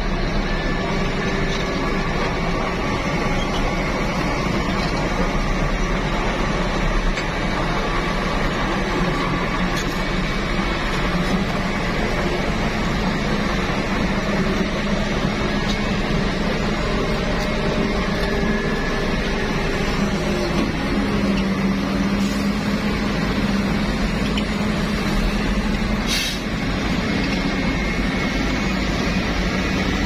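Heavy tipper truck's diesel engine running steadily while its hydraulic hoist raises the dump body to tip a load of dirt. The engine note steps up partway through and holds.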